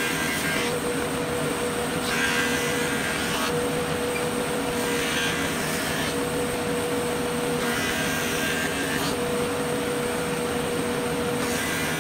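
Powermatic 180 thickness planer running with a steady whine, its knives cutting a board in about five separate bursts of hissing chip noise a couple of seconds apart, with the dust collector running and drawing off the chips.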